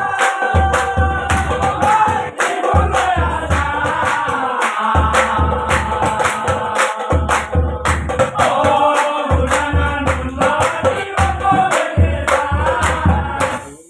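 Nagara naam: a group of men singing an Assamese devotional chant in chorus, backed by large nagara kettle drums beating in runs of low thumps with short breaks between them. Sharp strikes sound throughout.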